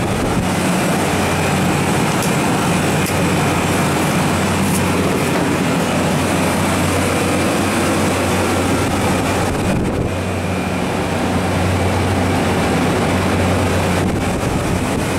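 Copeland refrigeration compressor and its condenser fan running steadily: a constant low hum under a broad rush of fan air.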